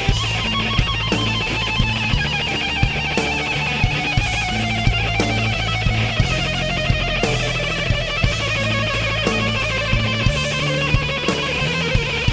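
Background rock music: electric guitar playing a wavering lead line over held bass notes and a steady drum beat.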